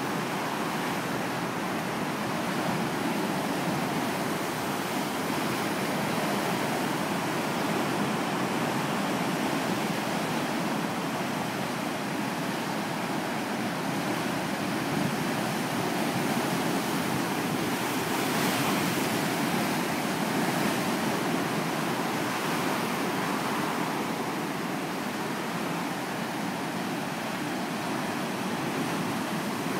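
Ocean surf: a steady, even wash of breaking waves, swelling a little about two-thirds of the way through.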